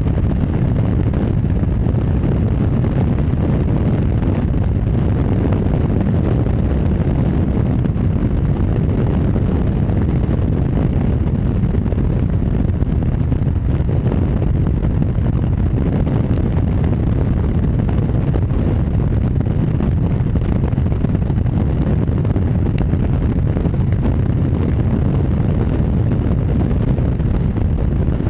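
Honda Varadero V-twin motorcycle riding at a steady cruising speed: a constant low engine drone mixed with wind rush on the microphone, with no gear changes or revving.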